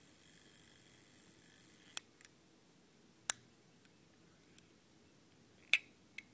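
Vintage Omega split-seconds stopwatch's crown and side pushers clicking as they are pressed to stop, split and reset the hands. There are four sharp single clicks with a couple of fainter ones between them, and the loudest comes near the end as the hands are set back to zero.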